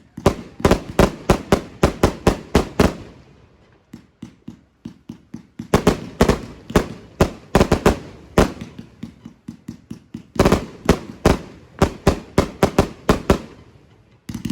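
Fireworks going off in three runs of rapid sharp bangs, about five a second. The runs last about three to four seconds each, and each one trails off before the next begins.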